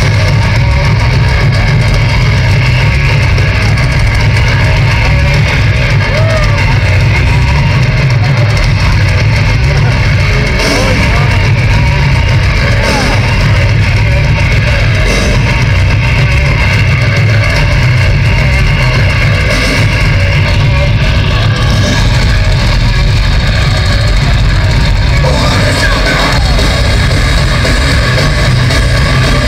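Heavy metal band playing live through a concert PA, heard from the audience: distorted electric guitars and drum kit, loud and steady with a heavy bass-laden low end.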